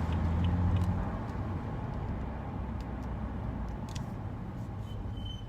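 In-cabin engine and road rumble of a BMW M235i on the move, heaviest in the first second. Near the end comes a brief high-pitched squeal from the brakes, which brake grease on the caliper metal contact points has not cured.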